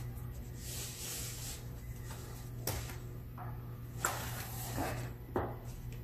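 Plastic bottom cover of an Asus VivoBook 15 laptop being pried and flexed by hand, with a few sharp clicks as its snap clips near the hinge resist and do not yet let go.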